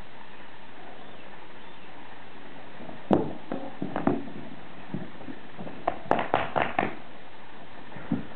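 Scuffling of two people sparring barehanded on a grass lawn over a steady background hiss. From about three seconds in come irregular footfalls and body-contact thuds, then a quick run of sharp knocks about six seconds in and a thump near the end as one goes down.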